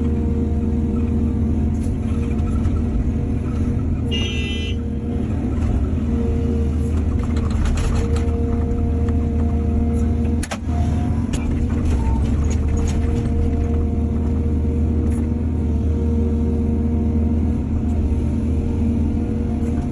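Heavy diesel engine of an excavator running steadily under working load, with a few sharp clanks around eight and ten seconds in and a brief high-pitched squeal about four seconds in.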